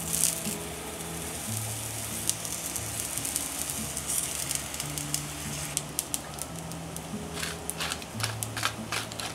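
Shiitake mushroom caps sizzling in hot oil in a frying pan, a steady hiss with a run of crackles and ticks in the second half. Soft background music with held low notes plays underneath.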